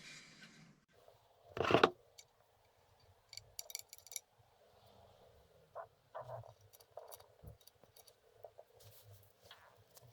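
Light clicks, taps and clatter of metal parts being handled on a workbench, with one louder knock about two seconds in.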